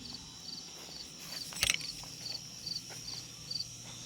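Crickets chirping in an even rhythm, about two to three chirps a second, with a single sharp click about one and a half seconds in and a faint steady low hum underneath.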